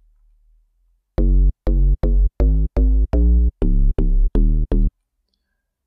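Deep house FM-style synth bass from Serum: an FM bass sample in the noise section layered with the synth oscillators. It plays a bass line of about ten short, deep notes, each starting with a sharp click, beginning about a second in.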